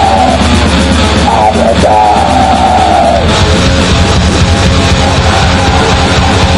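Raw punk song played at full level, built on heavily distorted electric guitar, with a wavering high line over it during the first three seconds.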